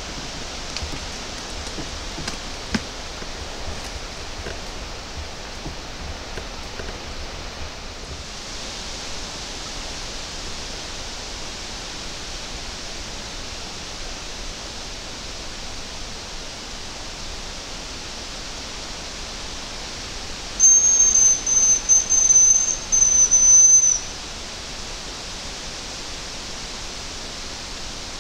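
Hazel grouse decoy whistle (манок) blown in a short run of high, thin, evenly pitched notes about three-quarters of the way in, to call hazel grouse. Steady wind noise in the foliage underneath.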